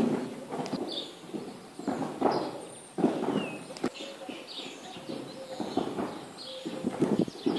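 Horse's hooves thudding on the sand footing of an arena as it canters loose, a dull beat roughly once a second. Small birds chirp faintly between the hoofbeats.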